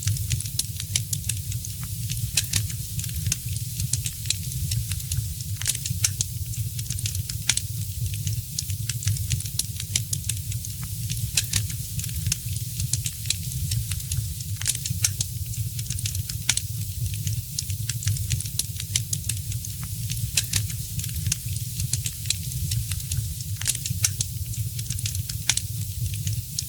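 Wood fire crackling: many sharp, irregular pops and snaps over a soft hiss and a steady low rumble.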